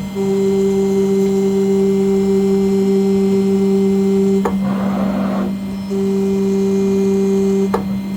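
CNC engraving machine running: a steady hum with a higher whine over it that cuts off with a click and comes back twice, and a brief hiss about halfway through.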